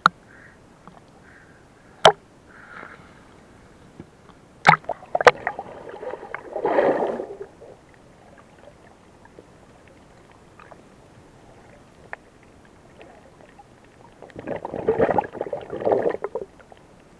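Water sounds picked up by a camera at and under the sea surface: a few sharp clicks, then two longer rushing bursts of water noise, about six seconds in and again about fifteen seconds in.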